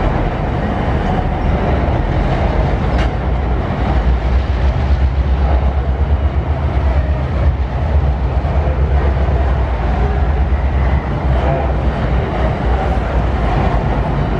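Tasrail freight train's hopper wagons rolling across a steel girder rail bridge: a steady, loud, low rumble of wheels on rails.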